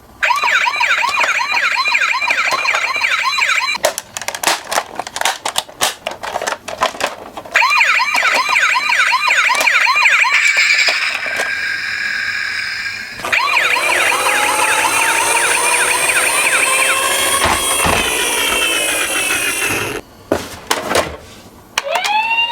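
Toy ambulance's electronic siren sounding as a fast, repeating yelp, switching about halfway through to a slower gliding siren pattern with a hiss over it. Between the siren spells come runs of sharp plastic clicks and clatters.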